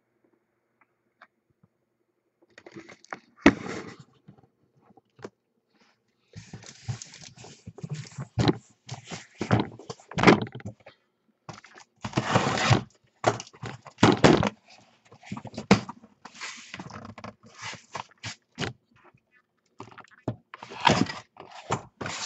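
A cardboard shipping case being handled and opened: a box cutter slitting the packing tape, with irregular scraping and thunks of the cardboard as the flaps are pulled open. It begins after a couple of seconds of near silence, with a sharp knock just after.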